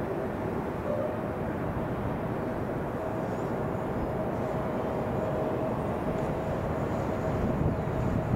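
Jet noise from an approaching EVA Air Boeing 777 twin-jet on final approach: a steady rumble with a whine in it that grows stronger about three seconds in.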